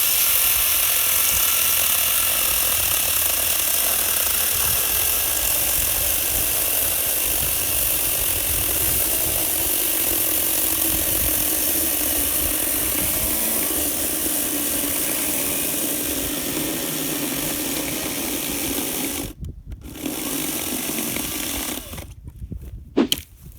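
Wen 40-volt cordless electric chainsaw cutting wood: a steady run for about nineteen seconds, a short stop, then about two more seconds of cutting before it stops, with a single knock near the end.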